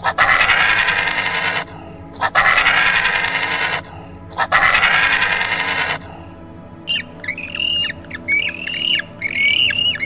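Three long, harsh, noisy animal cries, each about a second and a half, then from about seven seconds in a bird squawking rapidly, about three calls a second, each call sliding down in pitch.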